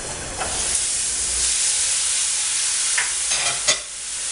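Water poured into a hot frying pan of steak and onions, sizzling and hissing steadily as it hits the hot fat and turns to steam. A few sharp clicks of metal on the pan come near the end, the loudest just before the end.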